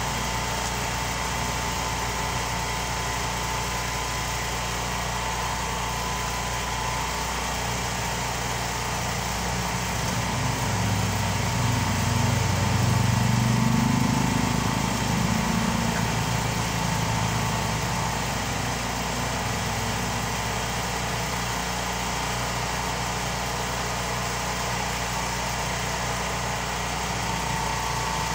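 Steady engine noise of road traffic, with a vehicle's low engine rumble swelling and fading in the middle as it passes.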